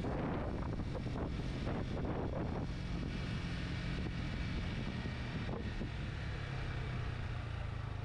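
Motorcycle engine running at a steady cruise, with wind rushing over the rider's microphone. The wind is gustier in the first couple of seconds, and the engine's steady drone grows stronger after that.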